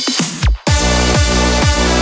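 Electronic dance music: a fast drum-roll build that ends in a hit and a short drop-out about half a second in, then the full track comes back with a heavy kick drum about twice a second over sustained bass.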